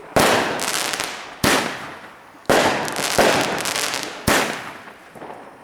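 New Year's Eve fireworks going off: four loud bangs about a second apart, each trailing off over a second or so, with a smaller bang in between.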